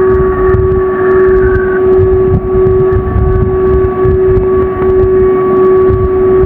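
Emergency alert alarm tone: a loud, steady held low tone with a fainter higher tone above it, over a rough low rumble.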